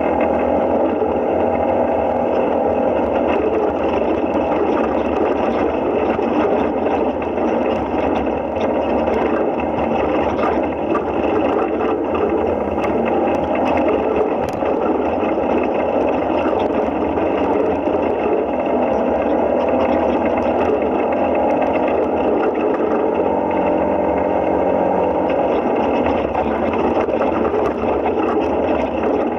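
Side-by-side UTV engine running steadily at low, even speed, heard from inside the open cab as it crawls along a dirt trail, with no revving.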